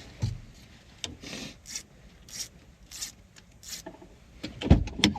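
A series of short rubbing, scraping strokes about every half second, then a heavy thump near the end: someone shifting about in a cramped ice-fishing shack.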